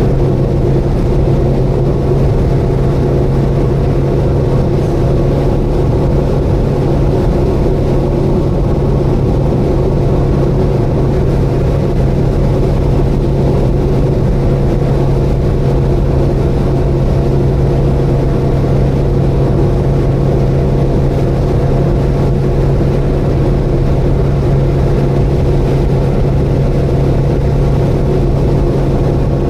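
Subaru Vivio KK3 running at a steady cruising speed on the expressway: a constant drone of its 660 cc four-cylinder engine with road noise, holding one pitch with no change in speed.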